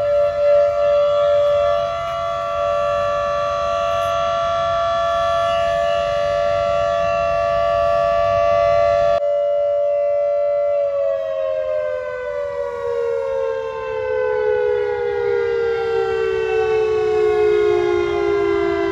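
Town siren sounding one long, loud wail: two close tones held level for about the first half, then slowly falling in pitch as it winds down. It is the siren that sounds every day at 8:30 morning and night as a time signal.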